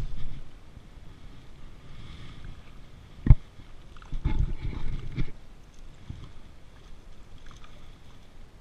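Water lapping and sloshing against a boat on a flowing river. About three seconds in there is a single sharp knock, and a second later a short burst of splashing and handling noise.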